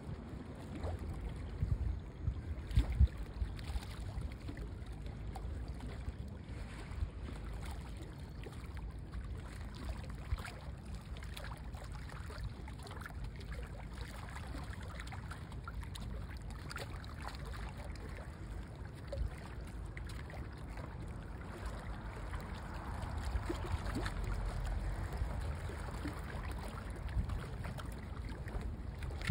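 Harbour-side water lapping and trickling, with wind rumbling on the microphone and a few small scattered knocks. The water grows a little fuller and louder about three-quarters of the way through.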